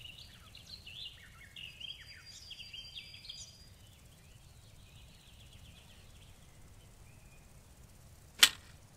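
Birds chirping faintly for the first few seconds, then a single sharp snap about eight seconds in as the 3D-printed bow's string is released and the arrow shot.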